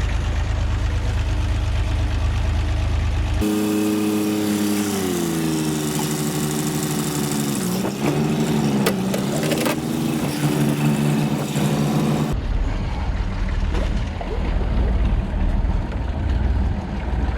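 Tractor diesel engine running, its revs dropping about five seconds in and rising and falling again a little later, with a deeper low rumble before and after.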